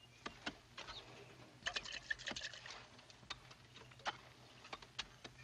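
Faint clinks of a metal dipper against a bucket and tin cup as water is ladled out and poured, with a quick run of clinks and splashing about two seconds in.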